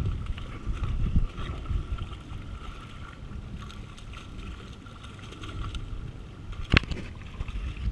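Wind rumbling on the microphone at the seaside, heavy in the first second or so and then easing, with one sharp click about seven seconds in.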